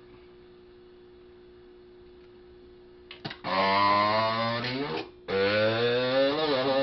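A steady faint electrical hum, then from about three seconds in a man's long, drawn-out wavering voice in two held stretches with a short break, used to modulate the keyed 10-meter amplifier.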